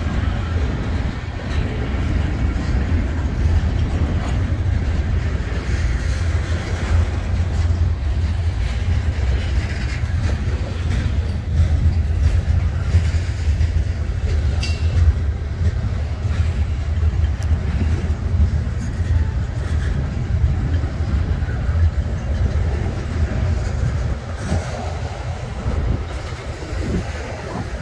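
Norfolk Southern manifest freight train rolling slowly past: a steady low rumble from the passing covered hoppers, boxcars and tank cars, with light clicking of the wheels on the rails.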